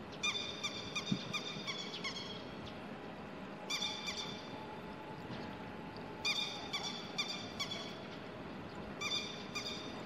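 Grey-headed lapwing calling: four bursts of sharp, high, ringing notes repeated about four times a second. This is the wary call of a parent lapwing guarding its chicks.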